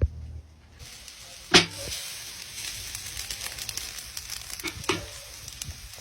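Food frying in a hot pan, a steady sizzle that starts about a second in. A sharp knock comes just after it starts, and another near the end.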